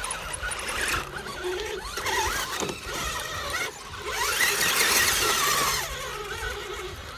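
A radio-controlled rock crawler's electric motor and geared drivetrain whine in bursts of throttle as it climbs a rock, the pitch rising and falling. There are three bursts, the longest starting about four seconds in.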